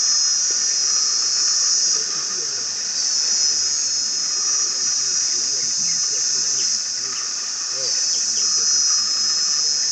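Steady, high-pitched chorus of insects buzzing, swelling and easing in loudness every few seconds.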